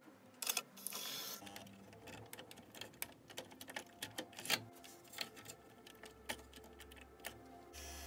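Sony MHC-RX99's CD changer mechanism cycling a disc: a run of plastic clicks and ticks, a short motor whir about a second in, a sharper click midway, and a steady motor hum starting near the end.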